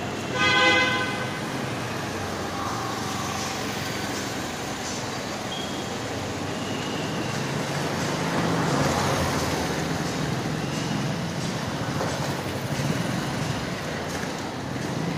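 A vehicle horn sounds once, briefly, about half a second in, over a steady background of vehicle noise with a low hum.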